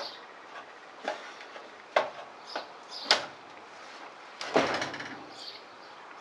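Shoes knocking on the rungs of an aluminium ladder as a man climbs with a heavy roll, a sharp knock about once a second. About four and a half seconds in comes a longer scraping thud as the rolled rubber roofing membrane is pushed onto the roof.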